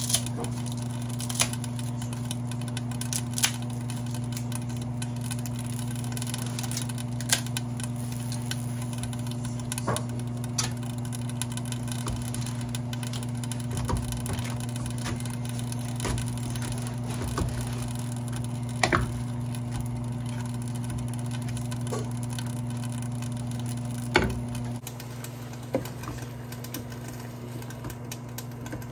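A steady low mechanical hum from a kitchen appliance motor, with scattered sharp clicks and knocks of kitchenware. The hum cuts off about 25 seconds in.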